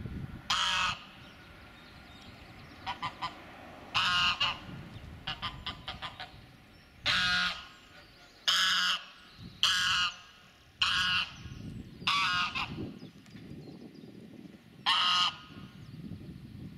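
White domestic goose honking loudly and repeatedly, about eight short, strident calls at irregular intervals with a few softer short notes between them: territorial honking of a goose guarding its ground.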